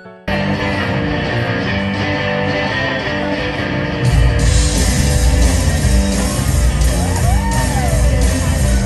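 Jive music playing for a ballroom competition heat. The music becomes louder and fuller, with strong bass, about four seconds in.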